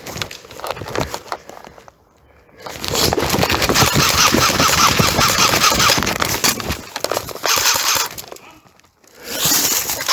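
Close, loud crackling and crunching of dry forest undergrowth, leaves and twigs, as someone pushes through it. There is a short lull about two seconds in, then a long loud stretch and a shorter one near the end.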